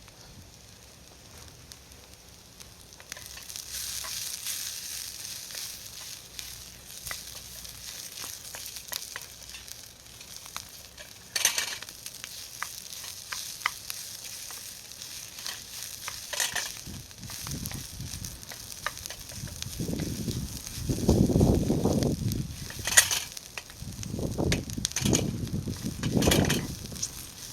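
Food sizzling and frying in an aluminium skillet over a campfire, starting about three seconds in, with a few sharp clicks of a utensil against the pan and louder stirring noises in the second half.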